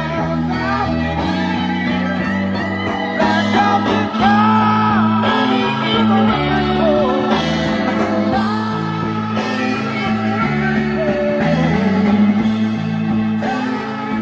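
A song with singing played through the restored AMI-Rowe R-2620A push-pull tube amplifier and a loudspeaker, picked up by a microphone in the room. The upper mids sound hollow, with some of the vocals dropping into a hole, which the owner puts down to the Pioneer SX990 preamp feeding the amp rather than the amp itself.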